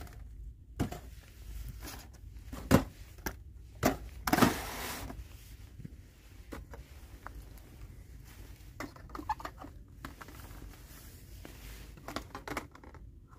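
Packaged diecast toy cars being handled on store shelves: a few sharp knocks and clicks of plastic-windowed boxes in the first five seconds, one with a brief rustle, then quieter small clicks and rustling of blister cards on peg hooks.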